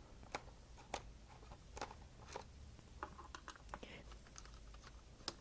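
Faint, scattered small clicks and ticks of a screwdriver working screws out of a laptop's plastic underside, with a short cluster of them about three seconds in.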